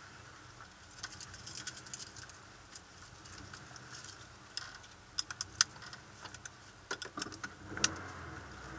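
Scattered sharp clicks and light rattles inside a stationary car, loudest around five and a half and nearly eight seconds in, over a faint steady hum.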